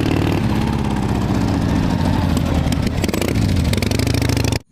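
Harley-Davidson V-twin motorcycle engine running with a fast uneven pulse, cutting off suddenly near the end.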